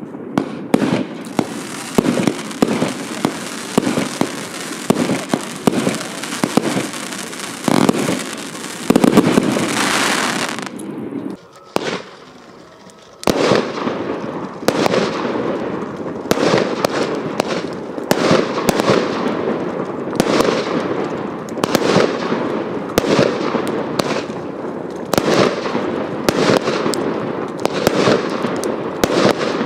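Hallmark Fireworks 'Royal Salute' firework going off in a rapid run of launches and bangs, with a hissing, crackling haze at first. About twelve seconds in it falls quiet for a second or so, then resumes with a quick string of sharp reports.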